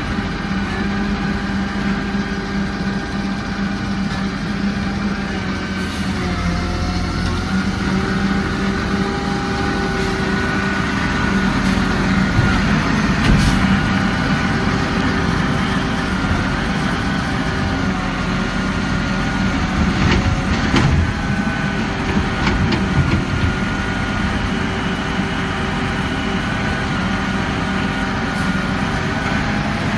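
Garbage truck engine running at a steady speed, with a few sharp knocks scattered through.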